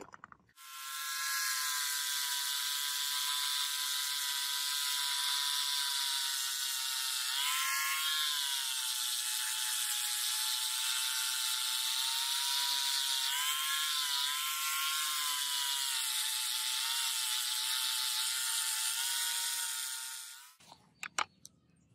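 Electric angle grinder with a sanding disc running against a rusty steel sword blade, sanding off the rust: a steady high whine with a hiss. The pitch sags briefly a few times as the disc bites, then the grinder stops near the end, followed by a few metal clinks.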